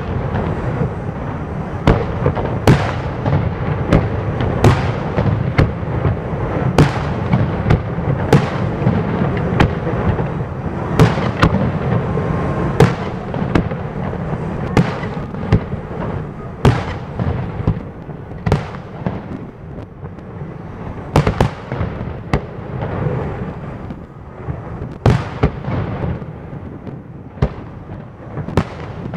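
Aerial fireworks display: shells bursting with sharp bangs about every second or so over a continuous low rumble of overlapping explosions, which thins out in the second half.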